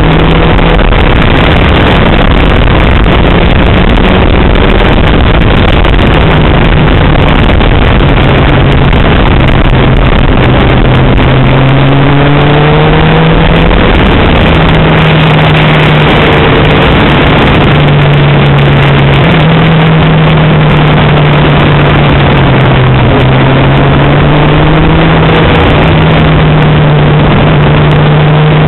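A motorcycle engine running under a loud, dense rush of noise, its note shifting up and down in pitch several times as the revs change.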